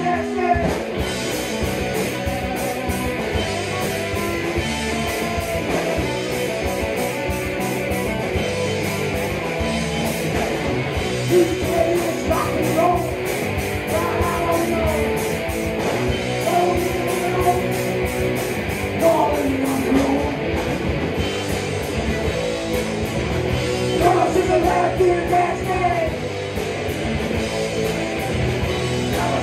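Rock band playing live in a rehearsal room: electric guitars, bass and drums, with a man singing at several points.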